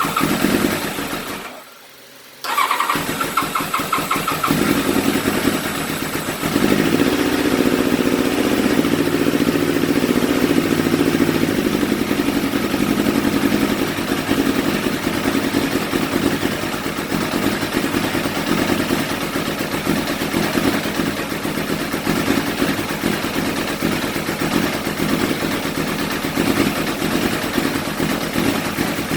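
Carbureted engine with its choke open, hesitant to start: it dies away and drops out about two seconds in, catches again about a second later, and from about six and a half seconds settles into a steady rough idle.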